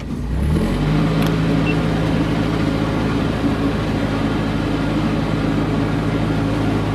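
Narrowboat diesel engine picking up revs about half a second in, then running steadily under throttle.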